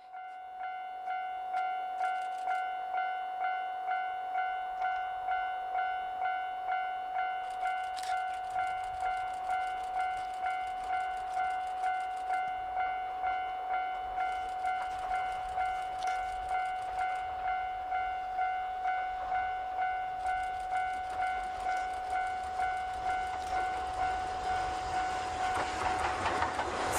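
Japanese railway level-crossing alarm ringing its repeated electronic clang, a steady pulse of one pitched tone about one and a half to two times a second. Near the end the noise of the approaching steam train rises and covers the alarm.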